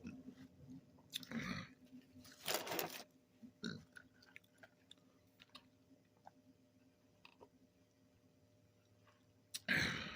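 A person chewing fast food close to the microphone: a few short crunchy bursts in the first four seconds and one more near the end, with faint mouth clicks in between.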